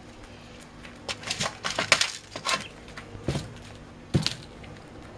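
Young peacock pecking at its food in a metal bowl: an irregular run of sharp taps and clicks of beak on metal and food, from about a second in until just past four seconds.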